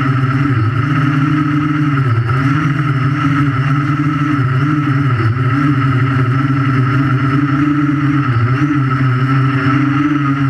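Invertix 3D quadcopter's electric motors and propellers humming steadily as it hovers, loud and close because the camera is strapped to its frame; the pitch wavers slightly as the motors adjust.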